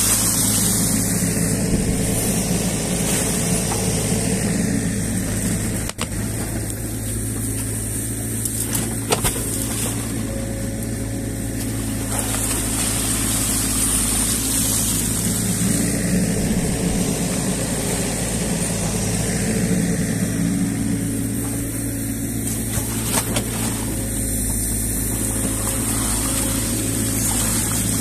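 New Holland Kobelco E50.2 mini excavator's diesel engine running steadily under hydraulic load, its note swelling and easing several times as the boom and ditch-cleaning bucket lift silt and reeds. A short knock about nine seconds in.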